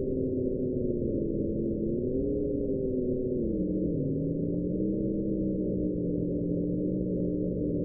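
Very low frequency radio receiver audio from an SDR: a steady, wind-like hiss with a few tones inside it that wander in pitch, dipping, rising, then falling about four seconds in before holding level. It is the uploader's unidentified signal near 11 kHz, not on the VLF transmitter list.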